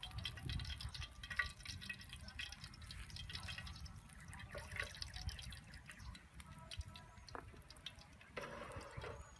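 Oil crackling and popping in a pan of frying fish, dense at first and thinning out as the fish are lifted onto a plate.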